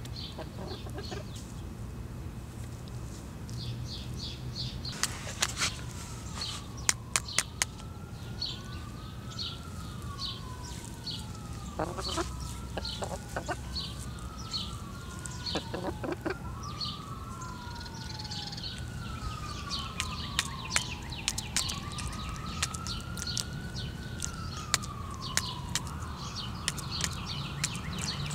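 Outdoor ambience: small birds chirping over and over, several sharp clicks, and a slow wail that rises and falls again and again through the middle and later part.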